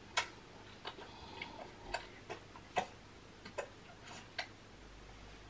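Baby sucking and swallowing on a bottle, heard as faint, irregular clicks, about eight in four and a half seconds.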